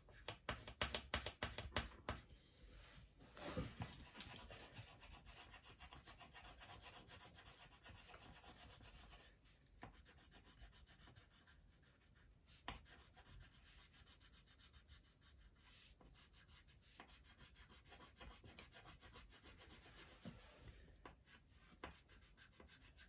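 Faint, rapid scratching and rubbing of a felt-tip marker colouring in on paper, many quick back-and-forth strokes.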